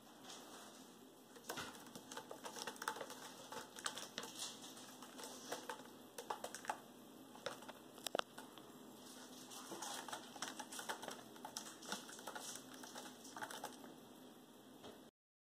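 Cat pawing and clawing at a sisal-rope scratching post and the feather toy hanging from it: irregular scratchy clicks and rustles, with the sharpest click about eight seconds in.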